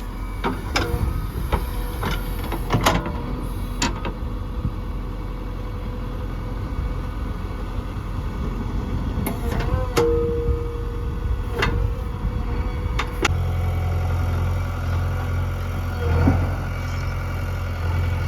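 Heavy diesel engine running, with scattered clunks and knocks. About thirteen seconds in, a deeper and steadier engine note comes in and holds.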